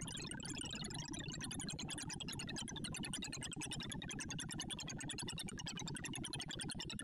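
Sorting-visualizer audio from an iterative bitonic sort on 1,024 numbers: a dense, rapid stream of very short synthesized beeps that skitter up and down in pitch, each pitch set by the value of the array element being accessed.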